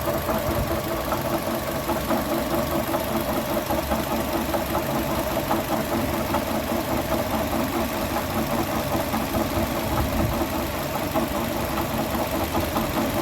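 2012 Chevrolet Aveo engine idling with a fast, steady ticking knock. The noise goes away when the poly-V belt is taken off, so it comes from the belt drive or one of its accessories: the alternator, water pump or air-conditioning compressor.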